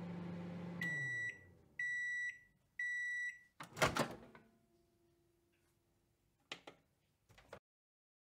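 Microwave oven finishing its cycle: the running hum winds down about a second in, followed by three evenly spaced high beeps about a second apart. Then comes a loud clunk of the door opening, and a couple of short clicks near the end.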